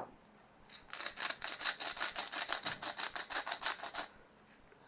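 A hand-twisted seasoning grinder being turned over the pot, giving a quick, even run of short crunching grinding strokes for about three seconds, which is salt or pepper being ground onto the dish. A sharp knock comes right at the start.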